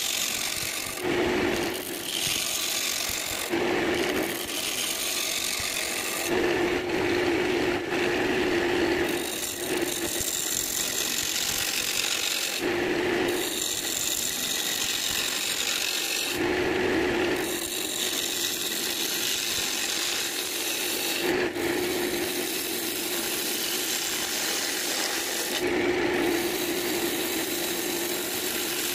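Wood lathe running with a turning tool cutting a spinning cherry-branch blank: a continuous scraping hiss, with louder cutting passes every few seconds, one lasting a couple of seconds.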